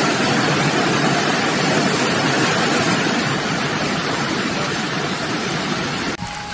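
Heavy rain and rushing floodwater: a steady, even rushing noise that cuts off abruptly near the end, leaving a quieter stretch with a faint steady tone.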